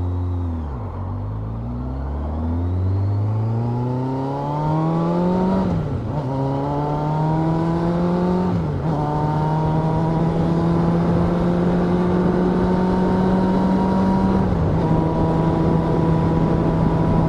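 Suzuki Katana 750 inline-four engine: a quick throttle blip, then the motorcycle accelerates through the gears, its pitch rising and dropping sharply at upshifts about six and nine seconds in, before it settles into a steady cruise.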